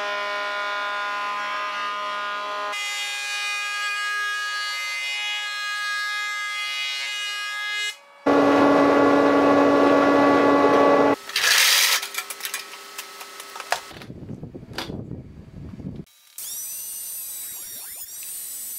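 Woodworking jointer and benchtop thickness planer running in a string of short clips. A steady electric motor whine gives way, a little past the middle, to the loudest stretch as the cutterhead planes a board, then a falling whine as a machine winds down. Near the end a thickness planer runs with a steady high whine.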